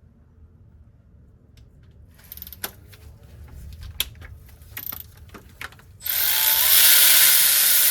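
Scattered clicks of a ratchet and socket being fitted to a bolt. About six seconds in, a power ratchet runs steadily for about two seconds, spinning out an E-Torx starter mounting bolt.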